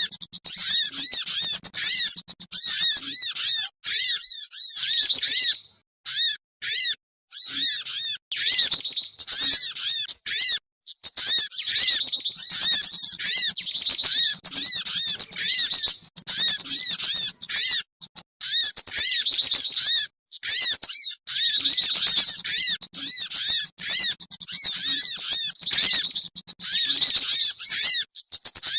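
Bird-lure recording of small songbirds calling: a dense, fast twittering of high chirps repeated over and over, broken by a few short gaps, loud and edited, a kind of call meant to draw small wild birds down.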